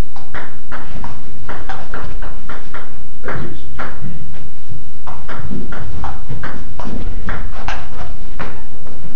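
Table tennis rally: the celluloid ball clicking quickly back and forth off paddles and table, two to three clicks a second, with low thuds of feet moving underneath.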